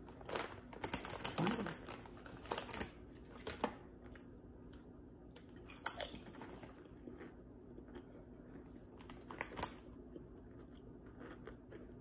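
A person biting and chewing crunchy seasoned potato chips, with crisp crunches about six seconds in and again near the end. In the first few seconds a cluster of crackles comes from the foil chip bag being handled.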